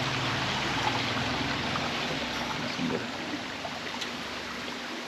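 Running water, a steady stream-like rush, a little quieter after about three seconds.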